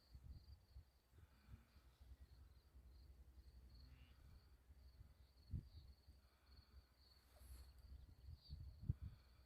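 Near silence: faint outdoor ambience with an insect's high, thin, steady trill over a low rumble of wind, and a soft thump about halfway through and another near the end.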